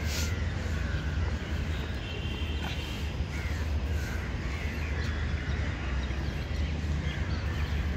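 Crows cawing faintly now and then over a steady low rumble.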